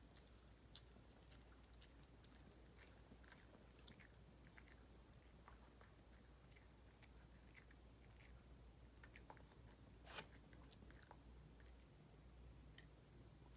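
Small dog chewing a crunchy snack: faint, scattered crunches and clicks, with one louder crunch about ten seconds in.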